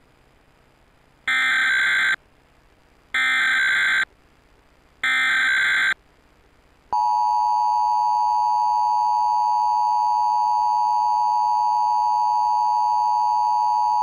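Emergency Alert System test: three short bursts of the SAME digital header, the harsh warbling data tone that encodes the alert, each about a second long. About seven seconds in, the steady two-tone EAS attention signal (853 and 960 Hz together) starts and holds.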